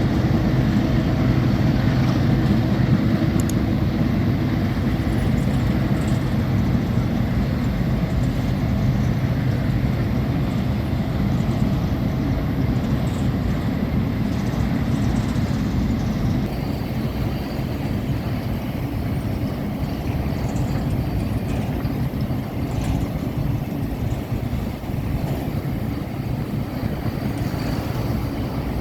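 GE ES44ACi diesel locomotives working hard under load up a grade, their deep engine drone strongest over the first few seconds and then easing, with the steady rumble of the train rolling past underneath. The sound grows a little quieter in the second half.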